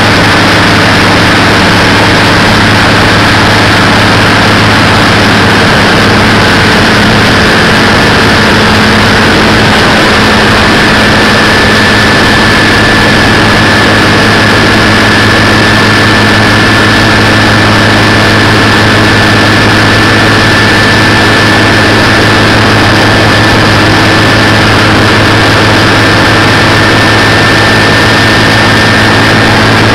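Sanger boat's inboard engine running loud and steady under way, with a rush of wind and water and a steady high whine over it.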